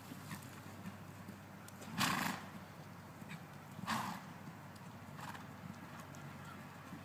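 A horse's hooves clip-clopping faintly, with two louder short noisy sounds from the horse about two seconds apart.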